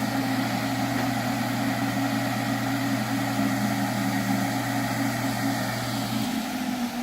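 Fantech inline radon fans running at full suction: a steady motor hum with a rushing-air haze. The lowest part of the hum drops out about six seconds in.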